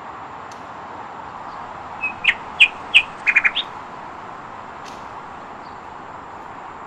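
A bird chirping: a quick run of short, sharp calls in the middle, over a faint steady hiss.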